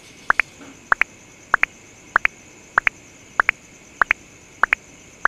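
Looped night-time chirping sound effect: a pair of quick rising chirps repeating evenly about every 0.6 s over a steady high background trill.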